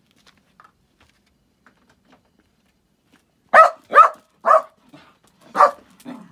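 A dog barking: four loud, sharp barks starting about three and a half seconds in, the first three about half a second apart and the last a second later.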